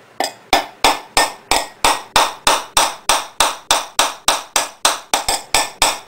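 Back of a metal spoon tapping a short rod into the centre of a tin can lid, about three quick, even taps a second, each with a brief metallic ring. The rod is punching the hole for a tin-can Stirling engine's displacer rod.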